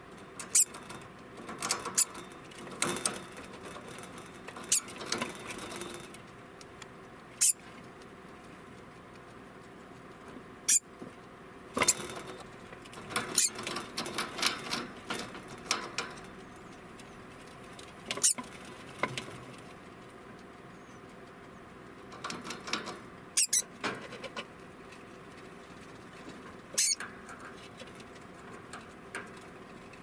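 Male degu giving its alarm call: short, sharp, high calls, about a dozen, coming singly or in small clusters at irregular intervals a few seconds apart.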